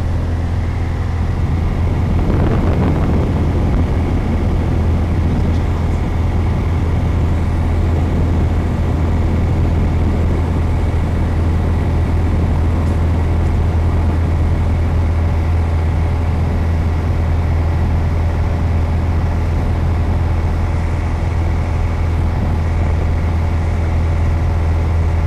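The Piper PA-28-151 Warrior's four-cylinder Lycoming O-320 engine and two-blade propeller running at steady cruise power, heard inside the cabin as an unbroken low drone.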